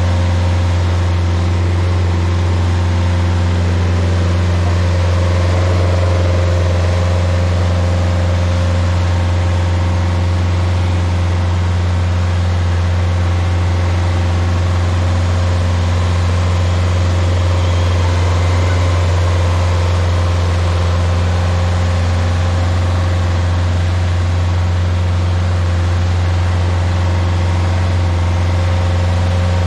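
Rayco RG50 stump grinder running steadily, a constant low engine drone.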